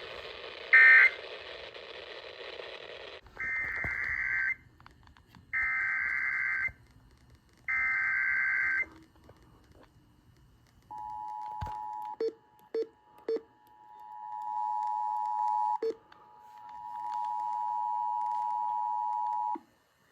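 Emergency Alert System signals on a radio broadcast. A short end-of-message data blip sounds over background hiss, and the hiss cuts off about three seconds in. Then come three roughly one-second screeching SAME header bursts for a new alert, then the two-tone attention signal, a steady two-pitched tone held for about eight seconds, with a few clicks early in it.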